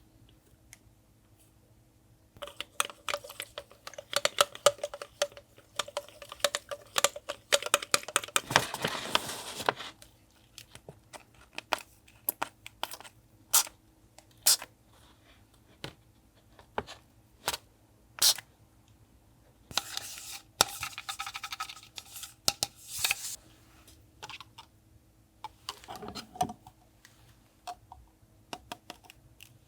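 Paper being handled and torn for a collage, in two longer stretches of scratchy rustling and tearing, with many separate light taps and clicks in between.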